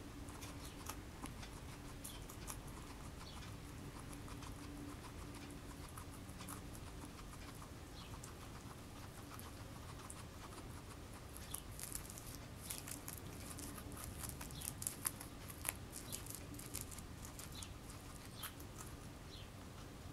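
Guinea pig chewing curly kale: quick, crisp crunching clicks, sparse at first and coming thicker and louder from about halfway through.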